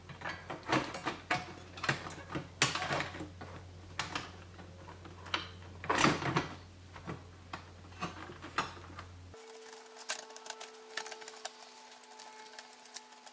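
Irregular clicks, clacks and knocks of a large sheet-metal internal frame being fitted back onto an all-in-one PC's chassis, with the loudest knocks around three and six seconds in and fewer, fainter clicks in the last few seconds.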